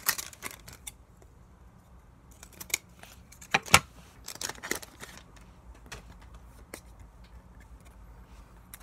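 Pokémon trading cards being handled during a pack opening: scattered sharp clicks and short rustles of cards and packaging. The sharpest clicks come a little under four seconds in.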